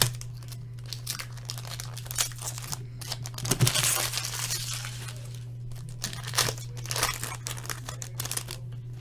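Hockey card pack wrappers being torn open and crumpled by hand: bursts of crinkling and tearing, busiest a few seconds in, over a steady low hum.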